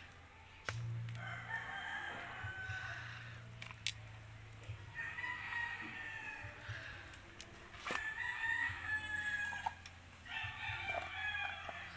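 A rooster crowing again and again, about four drawn-out crows, with a few sharp clicks between them and a steady low hum underneath.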